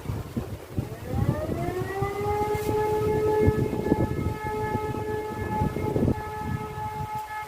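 E57 electromechanical siren spinning up from rest, its wail rising in pitch for about a second and a half, then holding one steady tone: one of the sustained blasts of the German "Feueralarm" fire alarm signal during a siren test.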